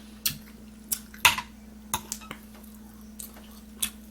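Eating at a table: a handful of sharp clicks and knocks of utensils against dishes, with wet chewing, the loudest click a little over a second in.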